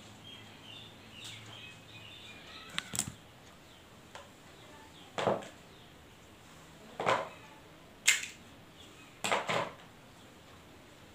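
Felt-tip marker scraping across a whiteboard in a handful of short strokes, a second or two apart.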